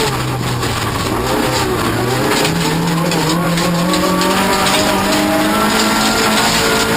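Offroad race car engine: the revs drop right at the start and hold low for about two seconds, then pick up about two and a half seconds in and climb steadily.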